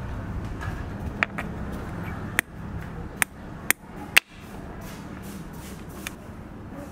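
Carved wooden toy wheels and axle knocking and clicking as they are handled and fitted together: about five sharp taps spread over a few seconds, the loudest about four seconds in, over a steady low background hum.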